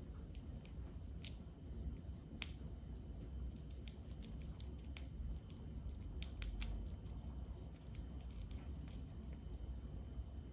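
Sugar glider lapping liquid from a dish: small, irregular wet tongue clicks, coming more thickly about halfway through, over a steady low rumble.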